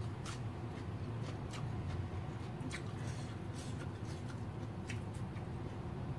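Eating sounds of a person eating beef stew and rice by hand: chewing and mouth smacks, with fingers working the rice on a plate. They come as scattered short clicks over a low steady hum.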